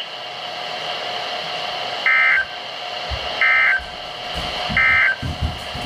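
NOAA Weather Radio EAS end-of-message data bursts: three short, shrieking two-tone digital bursts, each under half a second and spaced about a second and a half apart, over radio static. They are the SAME code that closes the flash flood warning broadcast. Faint low rumbling sits underneath from about the middle on.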